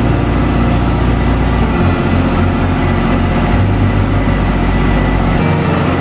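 A machine running steadily with a loud low drone under a dense, even wash of noise.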